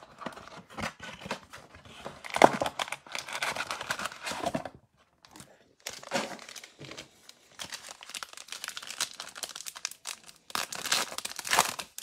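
Cardboard trading-card box being opened and a foil card pack crinkled and torn open by hand. The rustling comes in irregular bursts, the loudest about two and a half seconds in and near the end, with a short pause about five seconds in.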